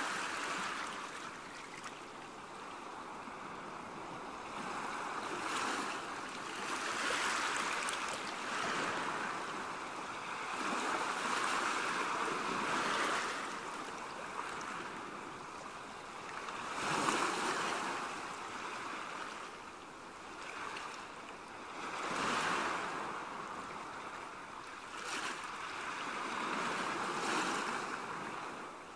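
Small sea waves washing in over the shallows and rocks. The wash swells and fades every few seconds.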